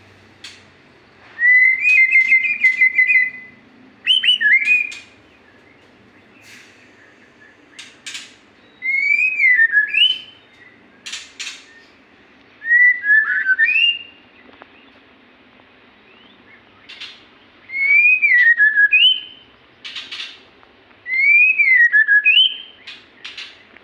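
A murai (a Copsychus magpie-robin) singing loud, clear whistled phrases. Each phrase is a short slur that rises and then falls, repeated every few seconds, with an opening warble and sharp clicking notes between the phrases.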